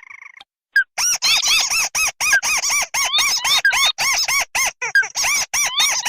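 Recorded crake lure calls: a fast run of short, squeaky, arched notes, about five or six a second, beginning about a second in after a brief pause, played to attract crakes.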